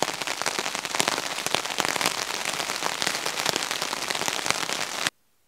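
Rain falling on a pond, a dense patter of drops with many sharp individual splashes, which cuts off suddenly about five seconds in.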